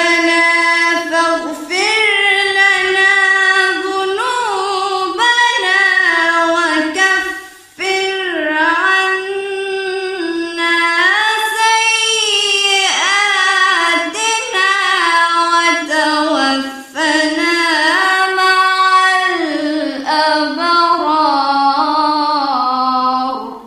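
A woman reciting the Qur'an in melodic tajweed style, one high voice drawing out long notes that rise and fall, with brief pauses for breath.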